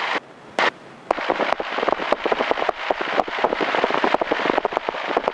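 Dense, irregular crackling and popping on the cockpit headset intercom audio, cutting out to a quieter hiss for most of a second near the start with one sharp pop, then crackling again.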